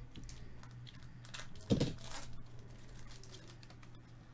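A pack of 2022 Topps Stadium Club baseball cards being opened by gloved hands: the wrapper crinkles and the cards slide and click against each other. There is a dull thump about a second and a half in.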